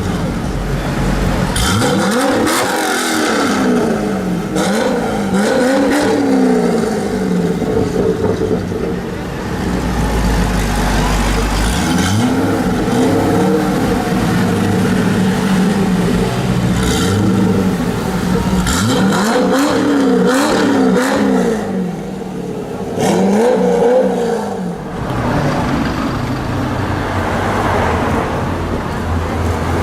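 Drag-built Chevrolet Corvette V8 engines idling and revved loudly in clusters of quick throttle blips, each rev rising and falling in pitch, with steady idling between the clusters.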